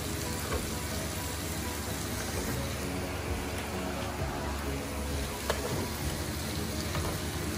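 Pork belly, sausages and eggplant slices sizzling on a flat griddle: a steady frying hiss, with one light click about five and a half seconds in.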